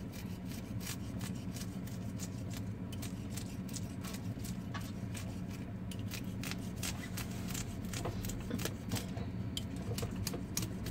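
Knife scraping the scales off a whole milkfish: a rapid, irregular run of short scratchy clicks.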